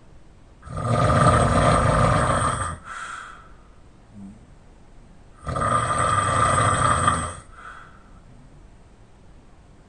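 Loud open-mouth snoring from a sleeper lying on their back: two long snores about five seconds apart, each lasting about two seconds and trailed by a shorter, softer breath.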